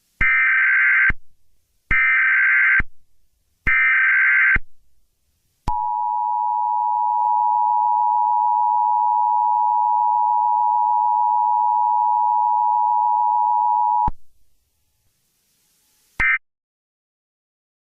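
Emergency Alert System signal. It opens with three roughly one-second bursts of shrill SAME header data, then the steady two-tone attention signal holds for about eight seconds and cuts off. A brief burst of the data sound comes near the end.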